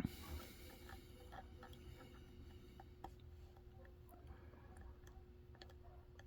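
Faint, scattered clicks of a lock pick and tension tool working the pin stack inside a Ruko 500 padlock, as pins are lifted and set. A faint steady hum runs underneath.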